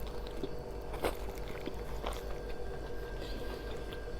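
Chewing and biting on crispy fried masala chicken, with small crunches and mouth clicks about once a second over a faint steady hum.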